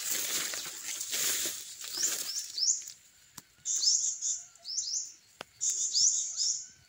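Footsteps swishing through grass and dry leaf litter for the first two to three seconds, then a bird calling with quick rising chirps repeated in short runs.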